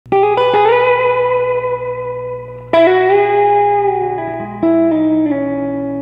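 Electric guitar played through an amplifier: slow chords struck near the start, about three seconds in and again near the end, each left to ring out, with a steady low hum underneath.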